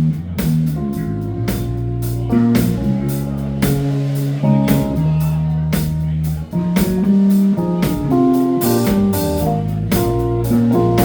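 Live band playing a blues-rock song, with guitar over a drum kit beating steadily and no singing heard.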